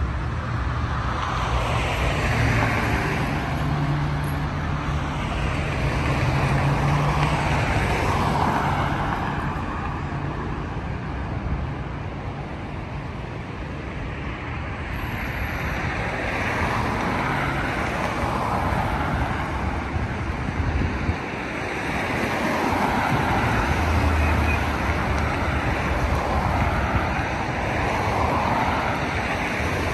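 Road traffic: cars passing one after another, tyre and engine noise swelling and fading in waves, with a lull about halfway through.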